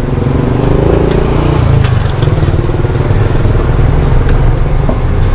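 Loud, steady low rumble of nearby road traffic, with a motor vehicle's engine note heard over it for the first second and a half or so.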